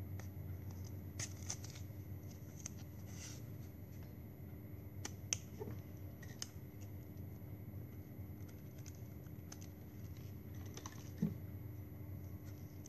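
Plastic drinking-straw petals being handled and fitted together: light clicks and rustles, with a sharper click about halfway through and another near the end, over a low steady hum.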